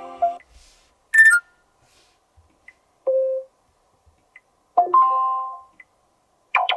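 Sony Xperia 5 III notification tones sampled one after another: four short chimes and beeps, each a different tune, with short silences between them. The third, about five seconds in, rings the longest and fades out.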